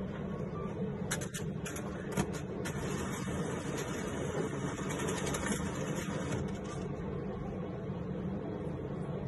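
Seven Bank ATM's banknote slot drawing in and counting a note: a few short clicks about one to three seconds in, over a steady mechanical hum.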